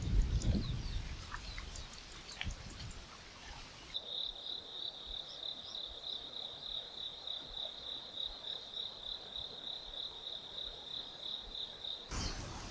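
Birds chirping over a low rumble. About four seconds in, this gives way abruptly to an insect's steady high-pitched pulsing trill, about five pulses a second, which cuts off near the end.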